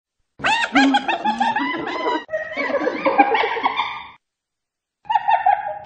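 Spotted hyena giggling: a rapid run of high, rising-and-falling yelping notes lasting about four seconds, a short pause, then another burst near the end.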